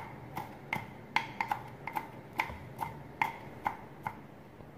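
Kitchen knife mincing wood ear mushrooms on a wooden chopping board: about a dozen sharp knocks of the blade on the board, two to three a second, stopping about four seconds in.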